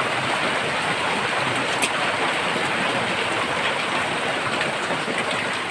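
Heavy rain falling steadily, an even hiss, with one short click about two seconds in.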